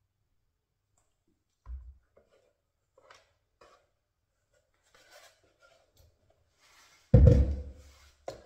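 Handling knocks from a plastic spray-gun paint pot and milk carton being filled and set down on a wooden board: a dull thump a couple of seconds in, a few light taps, then a loud knock about seven seconds in that rings briefly, and a second knock near the end.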